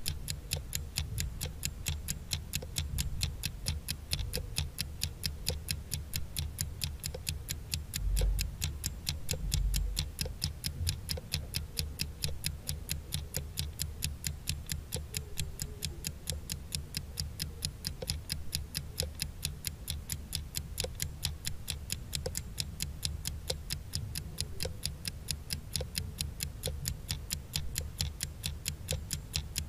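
Countdown-timer sound effect: a clock ticking fast and evenly, over a low steady hum, marking the seconds left to answer.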